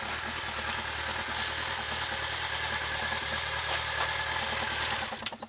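Yamaha Fazer 600's inline-four engine idling steadily just after a burnout, with a few sharp knocks near the end.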